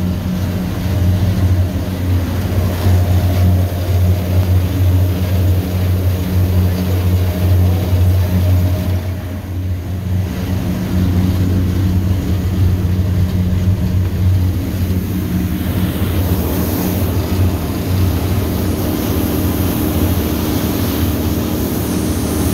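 Cabin cruiser under way at speed: a steady, loud low engine drone with wind and rushing water over it.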